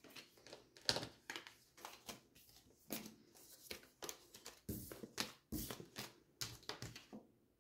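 Oracle cards being shuffled and handled: faint, irregular flicks and taps of the cards.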